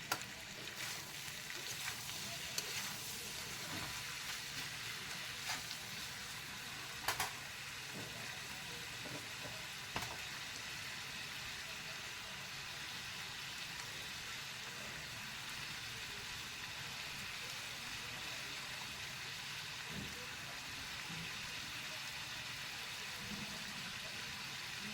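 Chicken frying in hot oil in a pan, with a steady sizzle, and a few sharp clinks of a spoon against the pan as it is stirred, mostly in the first ten seconds.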